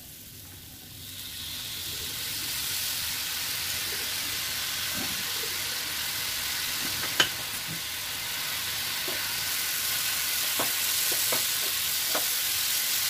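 Grated coconut, sugar and liquid nolen gur (date palm jaggery) sizzling in a hot non-stick pan as the puli filling cooks. The steady hiss builds from about a second in, with one sharp click about halfway through and a few light knocks of a wooden spatula near the end.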